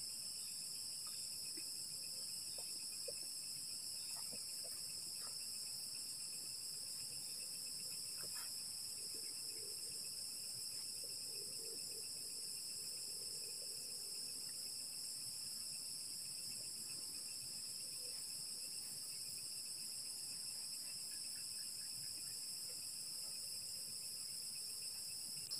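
Steady high-pitched chorus of night insects trilling without a break, with a few faint clicks.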